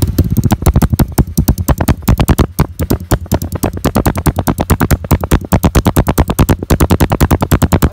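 Honda CG 125 Titan's single-cylinder four-stroke engine running through an SFX aftermarket exhaust, heard right at the muffler tip: a loud, fast, slightly uneven train of exhaust pulses.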